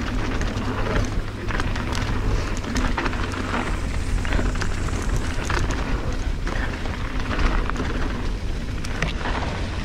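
Mountain bike riding down a dirt trail: continuous tyre noise over dirt with many small rattling clicks from the bike, over a steady low wind rumble on the microphone.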